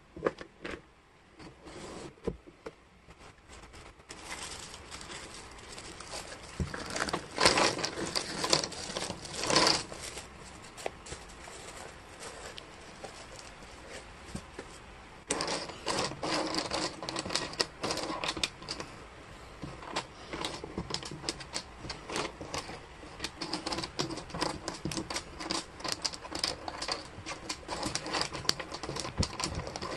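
Laser-cut wooden jigsaw puzzle pieces clattering and clicking against each other and the table as they are handled and spread out. The clicks come thick and fast, with louder tumbling clatters about a third of the way in.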